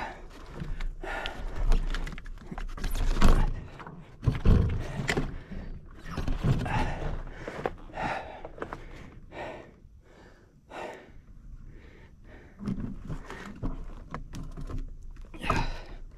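Mountain bike rattling and knocking over a rough dirt trail, with tyre crunch and irregular thumps as it rolls over bumps and rocks.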